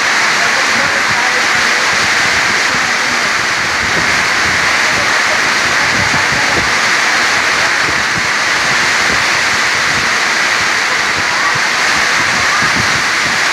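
Heavy tropical rain pouring down in a strong storm: a loud, steady, dense hiss, with irregular low gusts of wind underneath.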